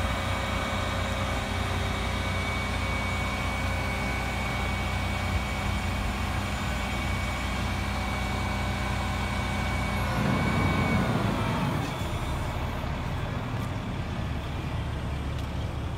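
Heavy diesel engine running steadily with a thin whine over it. About ten seconds in, the whine stops, the pitch drops away and the sound swells briefly, then settles.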